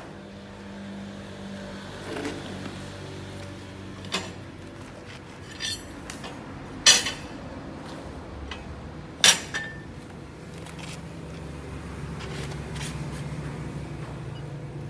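Steel plates and a welding rod being handled and set up, giving a handful of sharp metallic clinks, the loudest about seven and nine seconds in. A steady low hum grows louder in the second half.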